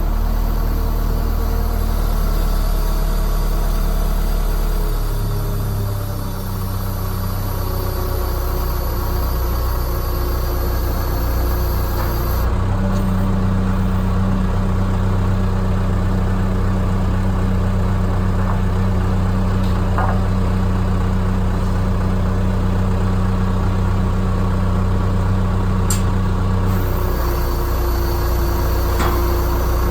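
An engine running steadily at idle, its pitch stepping to a new steady speed a few times.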